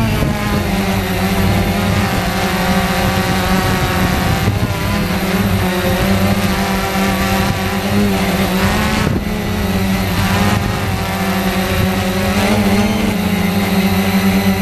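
Quanum Nova quadcopter's brushless motors and propellers buzzing steadily in flight, heard close up from a camera mounted on the craft. The pitch wavers slightly as the motors change speed to hold and steer it.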